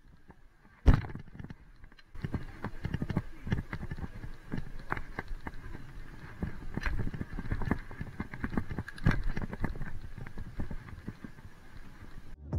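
Mountain bike rattling and knocking as it rolls over asphalt, picked up by a body-mounted camera, with a sharp knock about a second in and a dense run of small clicks and rattles from about two seconds on.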